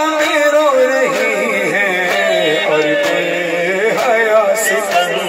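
A male noha reciter singing a long, wavering, drawn-out line of a lament into a microphone, heard through a PA loudspeaker. Under the voice there is a steady beat about once a second.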